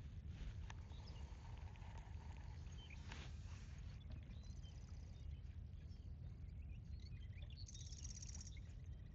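Faint bird chirps, with two short buzzy trills, over a steady low rumble.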